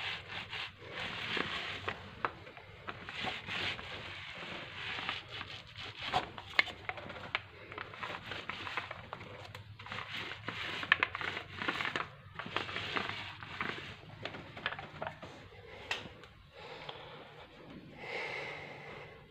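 Textured paint roller worked back and forth over a half-dried cement texture coat on a speaker box: repeated rasping strokes, each a hiss dotted with small clicks, which stop near the end.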